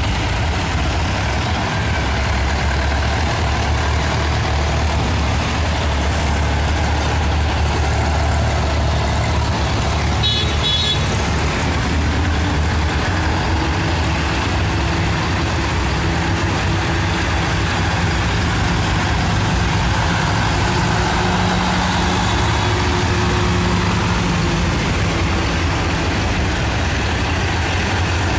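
Old tractor engines running as tractors drive slowly past one after another, a steady low rumble. Two short high beeps about ten seconds in.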